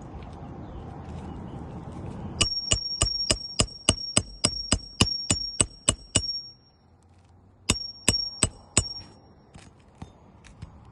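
Rapid sharp taps on a hard object, each ringing briefly with a high metallic tone: about fifteen taps at roughly four a second, a pause, then four more. A steady rushing noise comes before the first tap.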